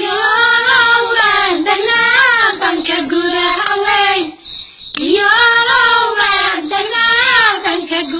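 A high voice singing a Somali dhaanto folk song in two long phrases, with a short pause about halfway through.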